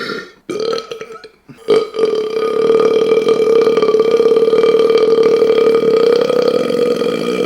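A man's burp: a short one about half a second in, then a long, loud, deep burp held at a steady pitch from about two seconds in, still going at the end.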